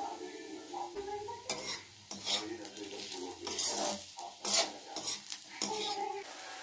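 A metal slotted spoon scraping and tossing potato sticks around a steel kadhai as they fry in oil, with a series of scrapes starting about a second and a half in, over a light sizzle.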